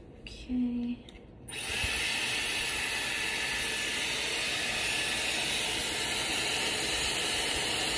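Dyson Airwrap hair styler switched on about a second and a half in, then running steadily: a constant rush of blown air with a high motor whine.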